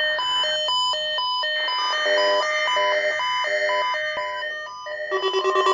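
Weather radio sounding its electronic alert for a required weekly test: a repeating pattern of alternating high and low beeps, changing to a denser chiming run of tones in the middle. About five seconds in, a rapid pulsing tone takes over.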